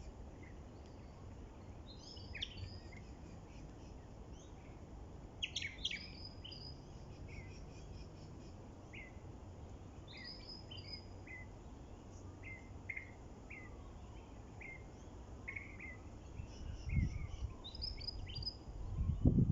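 Small birds chirping, short high notes scattered through, over a steady low wind rumble that gusts louder near the end.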